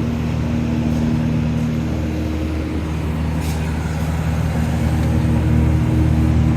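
Miller Syncrowave 350 TIG welder powered up and idling, with a steady electrical hum and drone.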